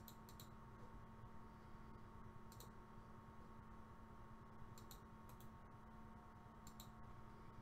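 Faint computer mouse clicks, scattered and some in quick pairs, over near-silent room tone with a faint steady hum.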